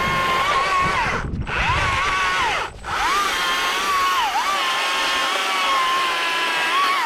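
Electric chainsaw running, its motor whine dipping in pitch each time the chain bites into the wood. It cuts out briefly twice, a little after one second and just before three seconds.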